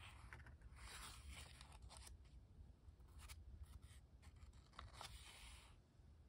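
Faint rustling and sliding of paper as a small sketchbook's pages are turned and pressed flat by hand, in a few short scrapes with soft clicks.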